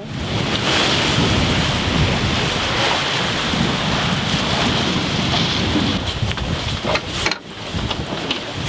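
Wind buffeting the microphone over the rush of waves and water along the hull of a sailing yacht under way at sea. Brief drop in level about seven seconds in.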